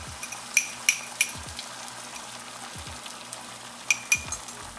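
Beaten eggs frying in hot oil in a nonstick pan, a steady sizzle with sharp crackling pops, a cluster of them about a second in and another near the end.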